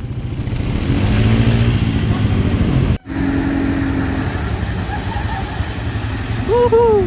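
Automatic ATV (quad bike) engine running under way on a trail, its pitch rising and falling with the throttle. The sound cuts out abruptly for an instant about three seconds in. Near the end someone gives a short cheer.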